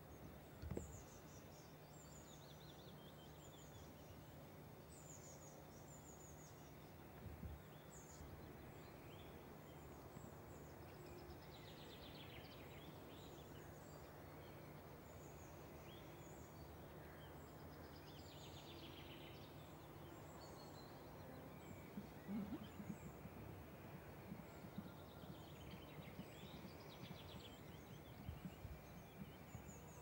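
Faint birdsong: small birds chirping and trilling on and off over a quiet outdoor background with a steady low hum, and a few soft low thumps, the clearest about 22 seconds in.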